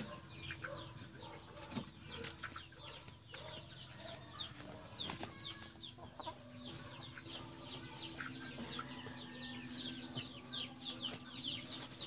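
Chickens chirping: a steady run of short, high, falling peeps, several a second, with a few scattered knocks. A low steady hum runs underneath from about halfway.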